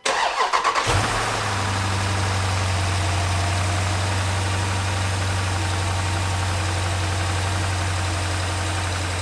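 2018 Jeep Grand Cherokee SRT's 6.4-litre Hemi V8, fitted with an aFe Magnum Force Stage-2 cold air intake, cranks briefly, catches about a second in and settles into a steady idle. It is the first start after the intake install.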